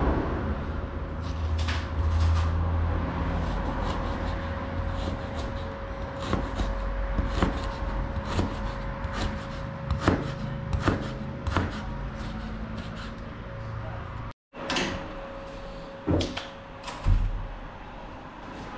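Irregular knocks and clatter of food-preparation work, over a low rumble and a steady faint hum.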